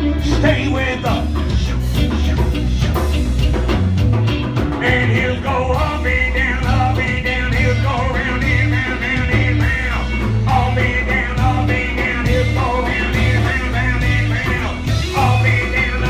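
A band playing an instrumental passage of a rock song: a steady pulsing bass line under a wavering, bending lead melody.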